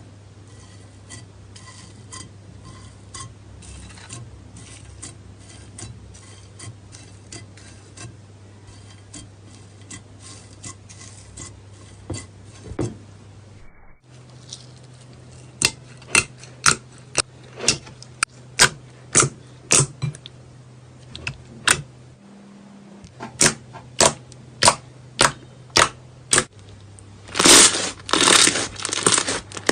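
Slime being pressed and squeezed by hands, giving sharp sticky clicks and pops, a few a second, louder from about halfway through, then a dense crunchy crackle near the end.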